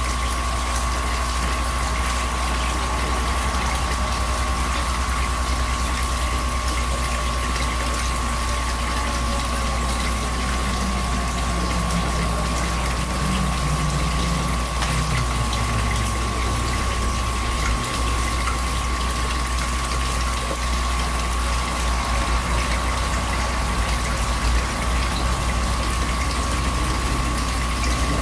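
Steady low machine hum with a hiss of moving water, typical of pumps running, and a constant high whine on top.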